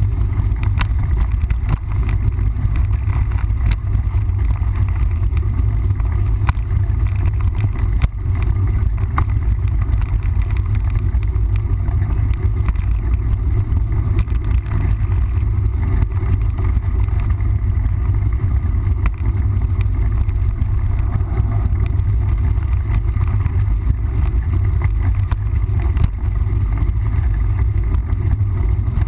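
Steady low rumble of wind and riding noise on the camera's microphone during a mountain-bike ride, with scattered sharp clicks and rattles from the bike on the trail.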